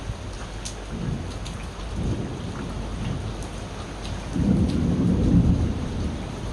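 Steady rain with scattered drop ticks under rolling thunder. Low rumbles build about a second in and again at two seconds, then a louder deep peal swells a little past four seconds and fades near the end.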